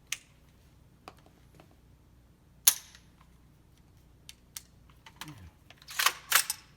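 Sharp metallic clicks and clacks of a firearm's action and magazine being handled, not being fired: a few isolated clicks, one loud clack partway through and a quick cluster near the end. The handling is typical of trying to get a magazine to seat and feed.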